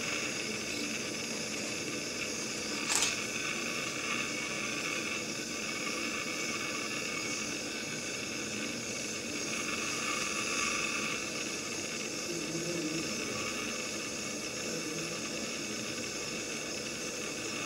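Steady hiss with a single short click about three seconds in.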